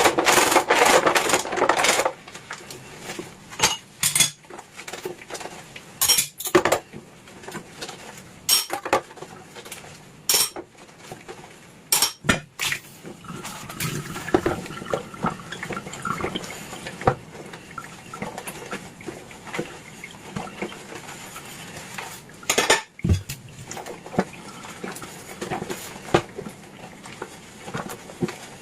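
Dishes and cutlery being washed by hand, clinking and clattering: a burst of quick clattering in the first couple of seconds, then separate clinks and knocks every few seconds.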